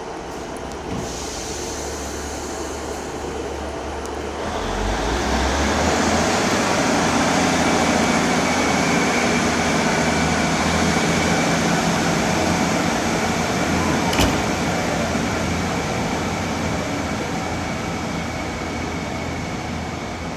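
Diesel passenger train pulling out of the station: the engines build up about four to five seconds in, run loud and steady with a faint high whine, then slowly fade as it moves away. A single sharp click about fourteen seconds in.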